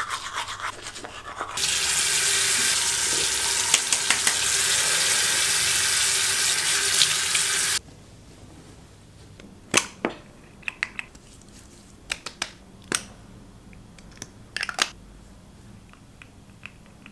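Toothbrush scrubbing teeth, then a tap running into a sink with a loud steady hiss for about six seconds that cuts off abruptly. After it, a handful of light clicks and knocks.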